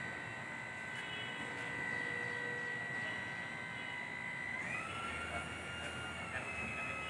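Electric motor and hydraulic pump of a battery-operated floor crane running with a steady whine, which steps up in pitch about two-thirds of the way through as the load on the pump changes.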